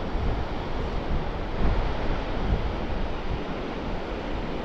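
Strong wind buffeting the microphone on an open beach: a steady rushing noise that rises and falls with the gusts, heaviest in the low end.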